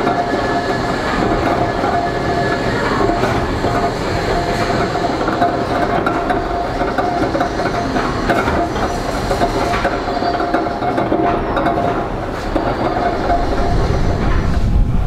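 Steam engines running in a Victorian pumping-station engine house: a steady mechanical clatter with a constant whine, and a stronger low rumble coming in near the end.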